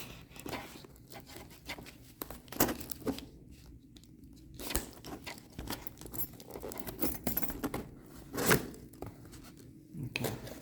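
Packaging being handled and opened by hand: crinkling and tearing of wrapping, with scattered clicks and knocks, the loudest about eight and a half seconds in.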